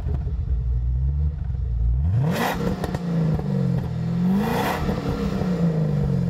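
A car engine revving hard, its pitch climbing and swinging, with two short rushes of noise about two seconds apart.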